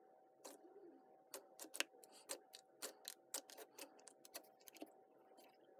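Clear glitter slime being pressed and folded by hand, giving a run of small, irregular clicks and pops, about three a second.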